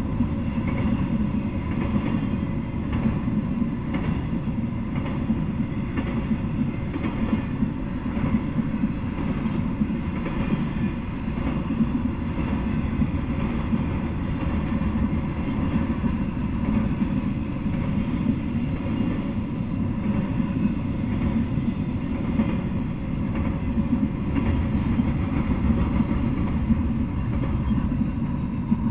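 Intermodal freight train rolling past, its flatcars loaded with highway trailers: a steady, loud rumble with scattered wheel clatter. The sound begins to fall away at the very end as the last car goes by.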